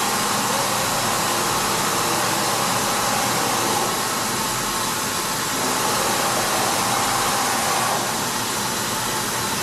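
Hwacheon D2-5AX five-axis machining centre running its automatic work changer cycle, a steady hiss of machine noise with a faint whine. The level drops slightly about eight seconds in, as the changer arm comes to rest over the table.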